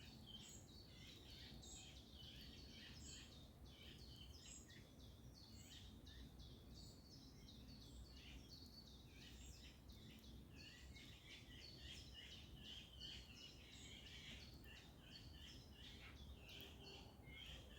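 Faint chorus of many small songbirds, short chirps and trills overlapping without a break, over a soft low rumble.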